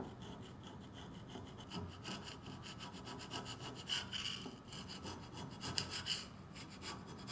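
Flathead screwdriver blade scraping old gasket residue off the gasket face of a pressure reducing regulator's metal lower housing, in repeated short, faint scrapes, a few louder ones near the middle and toward the end. The scraping cleans the sealing surface for a new gasket.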